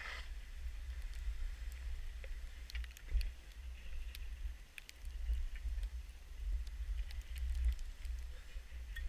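Skis running through deep powder snow with a faint hiss, under a low, uneven wind rumble on the microphone, with a few light clicks.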